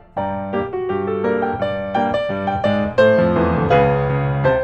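Background piano music with quick, changing notes.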